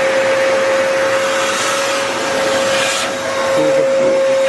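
Vo.Temm handheld vacuum cleaner running: a steady motor whine over a constant rush of sucked air.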